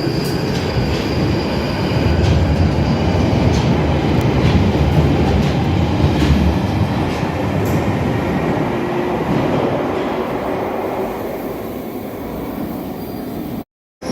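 London Underground Northern line tube train running through the tunnel: a loud low rumble with thin wheel squeal and spaced clicks of the wheels over the rails. It swells over the first few seconds and eases later on, and the sound cuts out completely for a moment near the end.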